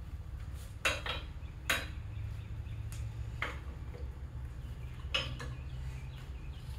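A handful of sharp metallic clinks, some in quick pairs, as a crankshaft is handled and wiped down in a bare engine block. A steady low hum runs underneath.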